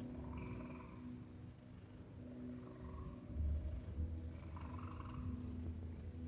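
Domestic cat purring, a low continuous rumble.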